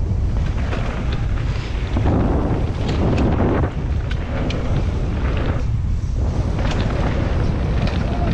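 Heavy wind buffeting the microphone during a fast mountain-bike trail run, with scattered sharp clicks and rattles over the rumble.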